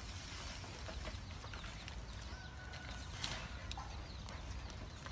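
Asian elephant feeding on cut grass, with a brief rustling swish about three seconds in as she swings a bunch of grass with her trunk. Under it run a steady low rumble and scattered faint ticks.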